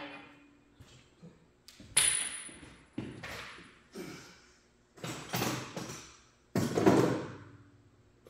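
A series of irregular knocks and thuds, one every second or so. One about two seconds in has a high metallic ring, and the loudest, longer clunk comes near the end.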